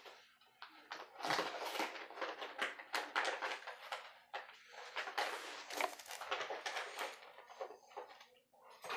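Dry cannabis bud being crumbled and broken up between the fingers, with the stem picked out: irregular dry crackling and crinkling.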